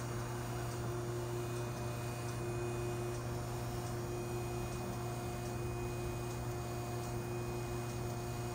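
Okamoto ACC-6.18DX3 surface grinder running under power: a steady machine hum with several constant tones over it.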